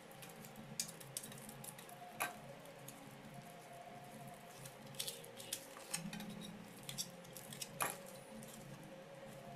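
Hands handling and rubbing a homemade cast concrete weight plate: faint scraping with scattered light clicks, two sharper ones about two seconds in and about eight seconds in.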